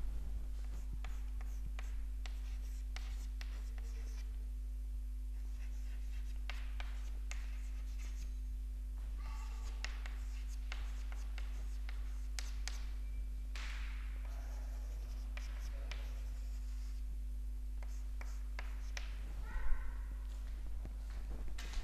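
Chalk writing on a chalkboard: a string of short scratching strokes and taps of the chalk, over a steady low electrical hum. One brief louder sound comes near the end.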